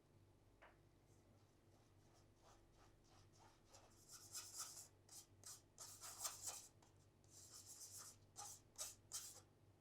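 Batter being mixed by hand in a bowl as flour and cocoa powder are combined into chocolate madeleine batter: a run of short, irregular scraping and rubbing strokes that starts about three and a half seconds in, over a faint low room hum.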